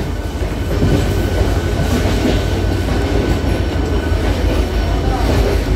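Local passenger train pulling into a station platform, its wheels rumbling steadily over the rails, heard from the open doorway of the moving coach.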